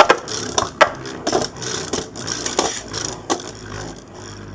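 Beyblade spinning top whirring in a plastic stadium, with a steady hiss and sharp clacks of plastic on plastic about once or twice a second as it strikes. The clacks grow sparser near the end.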